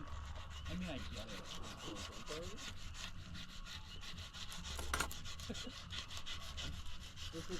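Knife sawing back and forth to skin a crappie fillet: a rapid, even run of rasping strokes, with one sharper knock about five seconds in.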